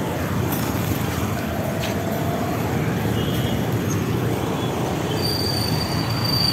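Street traffic with motorcycles and other vehicles running, a steady low rumble. A thin, high, steady squeal starts about five seconds in.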